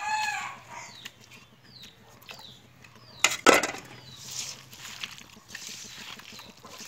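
Wet, squishy rustling of a hand mixing raw snakehead fish pieces into sliced onion and spice paste in a metal karahi. A short loud rustling burst comes about halfway through, and short falling chirps sound in the first half.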